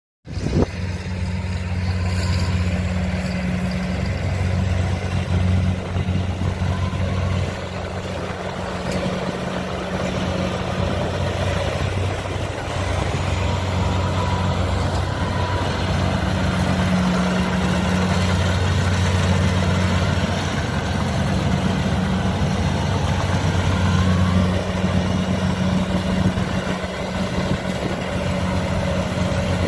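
Kubota DC 70 combine harvester's diesel engine running steadily at work, a low hum that swells and eases every few seconds.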